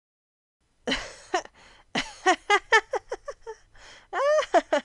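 A voice laughing in quick repeated syllables, starting about a second in, with a longer rising-and-falling sound near the end.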